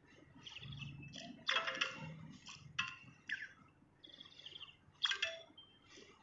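A songbird singing a run of short, sharp, high notes and quick downward-sweeping whistles, with two loudest bursts about a second and a half in and near the end.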